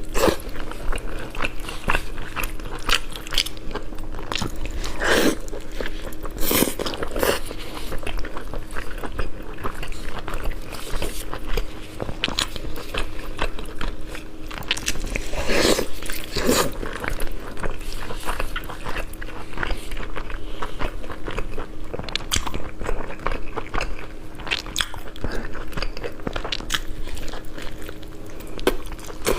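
A person biting and chewing pork close to the microphone, with many small wet mouth clicks and a few louder smacks. A faint steady hum runs underneath.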